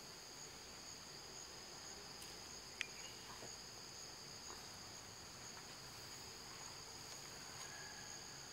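Steady chorus of insects in the forest, a continuous high-pitched drone in two pitches that never lets up. A single sharp click sounds about three seconds in.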